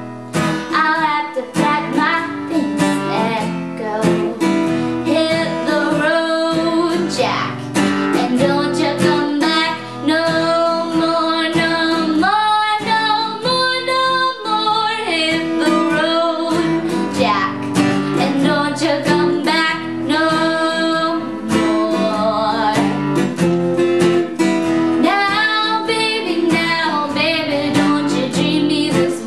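A young female voice singing over her own strummed steel-string acoustic guitar, solo and unaccompanied otherwise.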